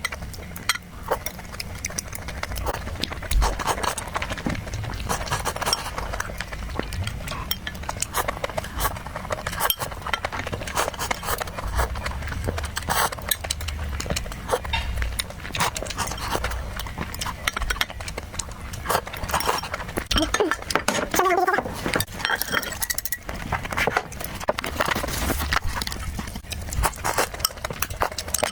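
Close-miked eating: wet chewing and lip-smacking in a dense run of clicks, with occasional clinks of cutlery against a dish.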